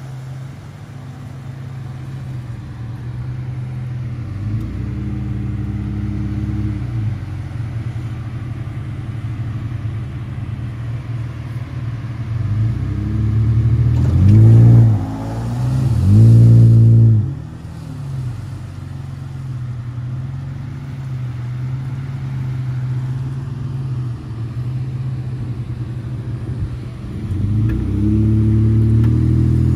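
Nissan truck engines working during a rope recovery of a second-generation Xterra stuck in deep sand: a steady engine drone, two hard revs a couple of seconds apart about halfway through, and another rise in revs near the end.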